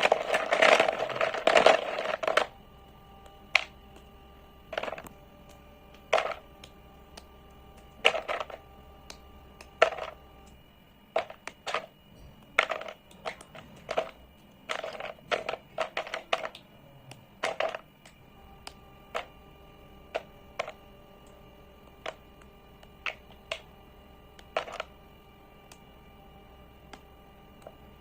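Slate pencils being bitten and chewed: a dense run of loud crunches in the first two seconds, then single sharp crunches at irregular spacing, roughly one a second.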